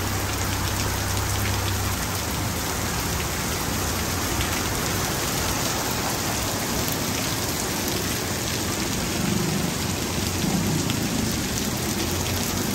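Heavy rain falling steadily: an even hiss of drops hitting surfaces. A faint low hum stops about two seconds in.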